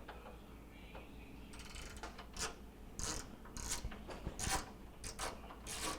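Ratcheting Phillips screwdriver clicking in short irregular runs as screws are backed out of a microwave's handle cover.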